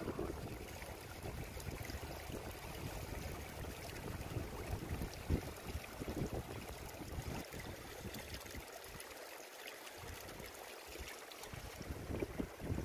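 Wind buffeting the microphone over a faint wash of seawater. The wind rumble drops away for about two seconds around nine seconds in.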